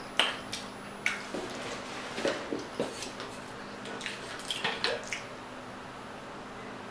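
Close-miked mouth sounds of fingers being licked and lips smacking while eating: a scattering of short, wet smacks and clicks over the first five seconds, then it goes quieter.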